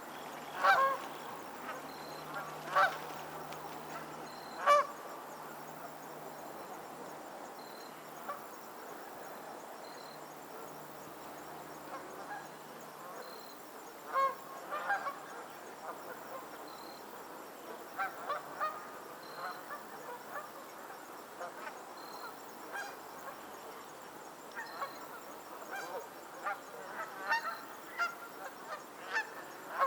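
Geese honking: a few loud single honks at first, a quieter spell with only occasional calls, then more frequent bunches of honks through the second half.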